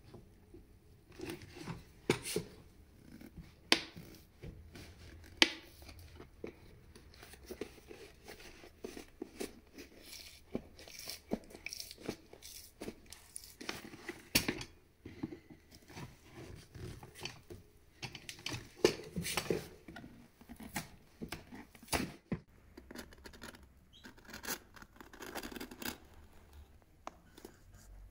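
Screwdriver prying at the worn sole of a leather shoe as the old sole is worked loose from the upper: irregular sharp clicks and short scrapes.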